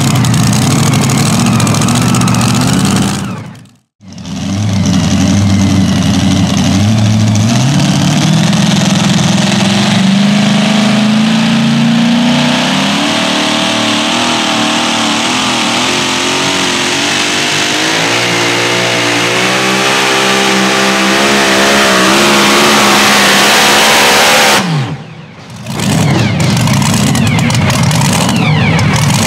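Supercharged methanol engine of a super modified two-wheel-drive pulling truck at full throttle pulling the sled. Its pitch climbs, then wavers up and down, and falls away and cuts off near the end, after which an engine runs lower and rougher. It opens with the tail of another pulling truck's run, which breaks off about four seconds in.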